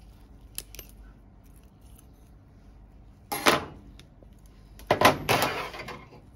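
Steel surgical instruments, a needle holder and forceps, put down on a hard surface: a short metallic clatter about three seconds in, then a longer clattering rattle about five seconds in, after a couple of faint clicks near the start.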